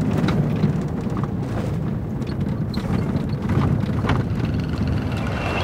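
Steady low rumble of a vehicle running, with a few faint knocks and clicks.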